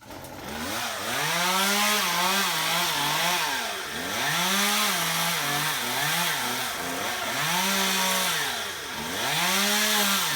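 Chainsaw starting to cut into a branch: the engine comes up to full speed within the first second, then sags and revs back up several times as the chain bites into the wood and eases off.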